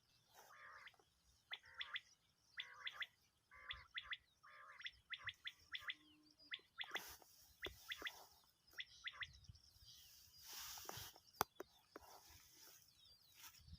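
Common quail calling, repeating short three-note phrases about once a second, with softer wavering calls mixed in during the first half.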